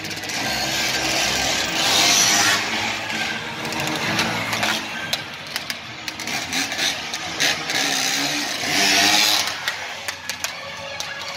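Dirt bike engine revving in bursts, loudest about two seconds in and again near the end as the bike rides in.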